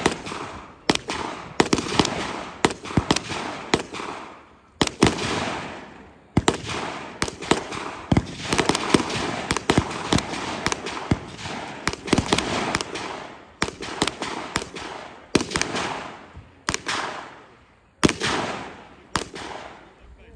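Gunshots fired at an irregular pace, many in a row and some in quick pairs, each sharp crack followed by a long echoing tail.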